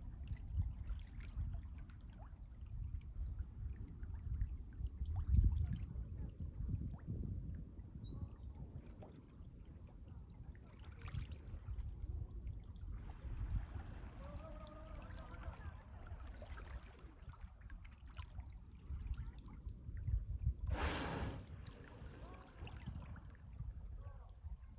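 Sea water sloshing against the shore with wind rumbling on the microphone, a few short high chirps early on, and one short forceful whoosh about 21 seconds in, a humpback whale's blow at the surface.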